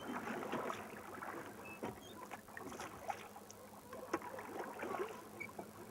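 Rowboat being rowed with wooden oars: irregular splashing of the blades in the water and short knocks of the oars working in the oarlocks, with one sharper knock about four seconds in.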